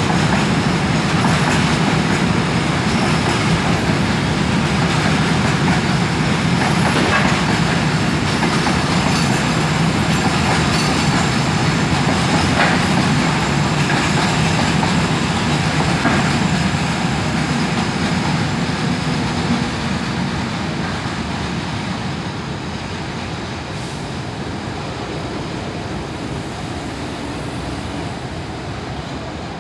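Freight train of cement tank wagons rolling past at close range: a steady noise of steel wheels on the rails with a few sharp clacks. The noise fades steadily in the last third as the train draws away.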